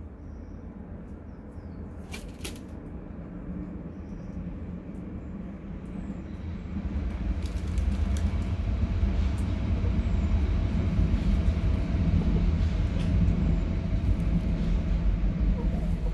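A passing train: a low rumble with a steady hum, growing louder about halfway through.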